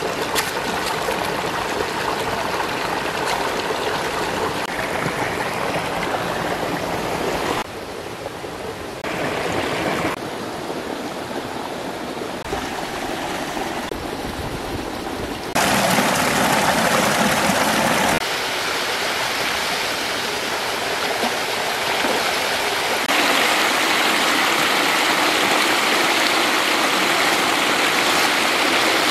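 Stream water running over rocks in a small cascade: a steady rushing that shifts abruptly in loudness several times, dropping for a couple of seconds near the start and growing louder in the second half.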